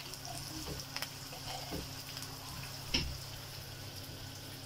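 Mutton mince kebabs sizzling steadily as they shallow-fry in oil in a pan, with a few light clicks of metal tongs, the sharpest about three seconds in.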